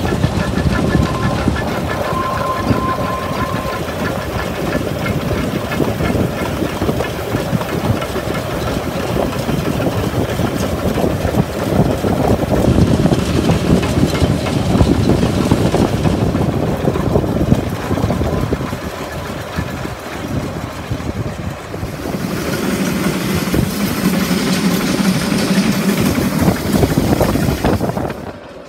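Narrow-gauge steam locomotives working past at close range, with the clatter of rods and wheels on the rails, in several clips one after another. The sound cuts off abruptly near the end.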